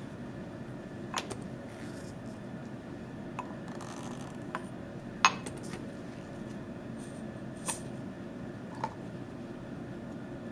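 About six light, sharp clicks and clinks of lab glassware and plastic bottles being handled and set down, the sharpest about five seconds in, over a steady low room hum.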